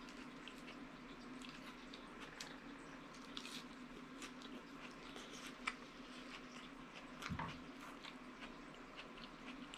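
Close, quiet mouth sounds of chewing a mouthful of angel hair pasta eaten by hand, with many small wet clicks and smacks over a faint steady hum. There is a soft low thump about seven seconds in.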